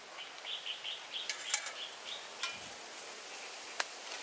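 A bird chirping in a quick series of short, high notes over a steady background hiss, with a few sharp clicks, the loudest about a second and a half in.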